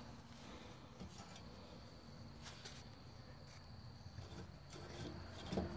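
Quiet background: a faint, steady, high-pitched trill of crickets, with a few faint taps.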